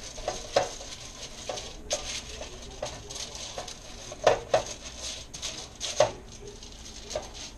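Kitchen handling noises: irregular light clicks and taps of dishes and utensils being handled, with two sharper knocks about four and six seconds in.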